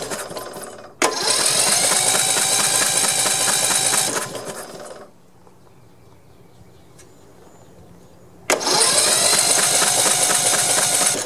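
Snapper riding mower's 14.5 hp overhead-valve engine cranked over by its starter with the spark plug out, turning over easy, to blow oil out of the flooded cylinder. One cranking run fades out within the first second, a second starts abruptly about a second in and lasts about three and a half seconds, and a third starts abruptly about eight and a half seconds in.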